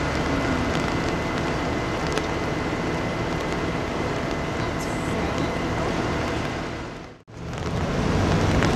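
Steady outdoor wash of rain noise with a low engine rumble underneath. It drops out briefly about seven seconds in, where the picture cuts, then carries on.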